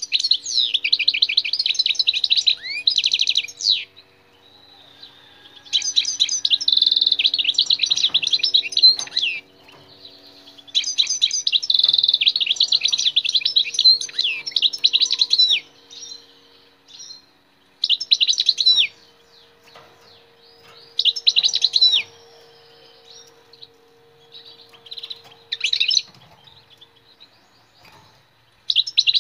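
European goldfinch singing: bursts of rapid, tinkling twitters. Two long phrases fill the first half, then shorter snatches of song come between pauses.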